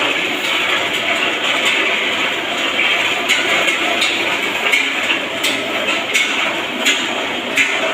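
Construction work noise: a steady clattering din with sharp knocks that repeat about every two-thirds of a second from about three seconds in.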